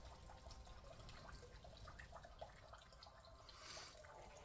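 Near silence: faint, scattered small ticks or drips, with a short soft hiss about three and a half seconds in.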